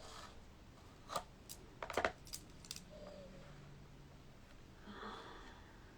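A handful of faint, sharp clicks and taps from small objects being handled, bunched between about one and three seconds in.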